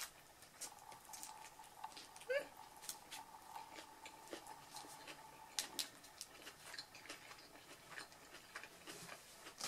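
Faint, close chewing and mouth clicks of someone eating a wrap, with soft crinkles of the paper wrapper as the food is handled. A brief rising squeak about two seconds in, and a faint steady tone under the first half.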